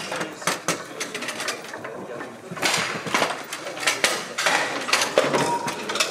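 Table-football play on a Bonzini table: the rods sliding and rattling in their bearings, with quick clicks and knocks as the figures strike and block the ball.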